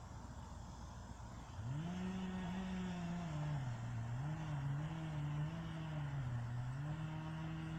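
A chainsaw starts up about a second and a half in and runs at high revs, its pitch dipping and recovering several times as it cuts, then holding steady near the end.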